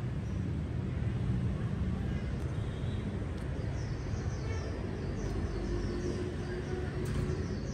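Outdoor background noise: a steady low rumble, with a run of faint high chirps in the second half.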